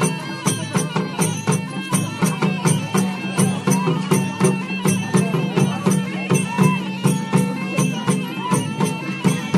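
Traditional folk music for a tribal festival dance: drums beat a quick, steady rhythm, with a wavering melody line over them.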